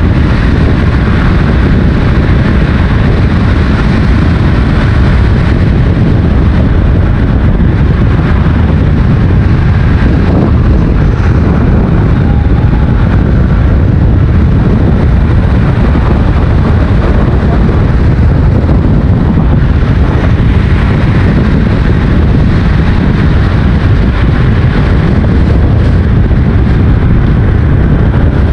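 Loud, steady wind buffeting on the microphone of a camera moving at road speed: a dense low rumble, with vehicle and road noise under it.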